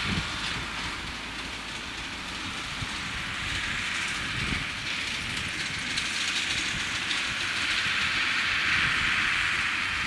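Ford 7840 tractor running under load as it pulls a Vicon MP800 big square baler, with the baler's mechanical clatter over the engine and a steady hiss. It grows louder over the last few seconds as the outfit comes closer.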